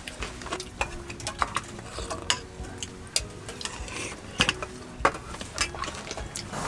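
Spoons and chopsticks clinking and scraping against stainless steel bowls while eating, in irregular light taps, a few ringing briefly.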